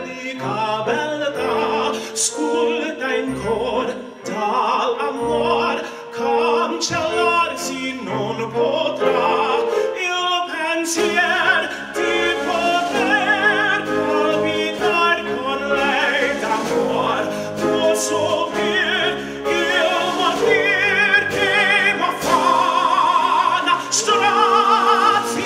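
A man singing an Italian operatic aria in full voice with a wide vibrato, accompanied by piano, cello and double bass.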